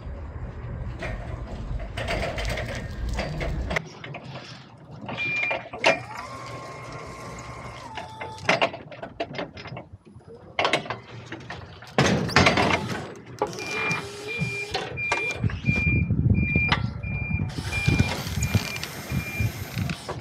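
Forklift at work unloading pallets: its engine running, sharp clanks and knocks of forks and pallets, and its high reversing alarm beeping, briefly about a quarter of the way in and then steadily through the latter part.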